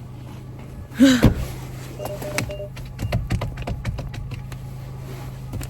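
Car door and cabin handling: a string of sharp clicks and knocks over the steady hum of a remote-started car running. A short vocal sound comes about a second in, and a brief two-note tone around two seconds.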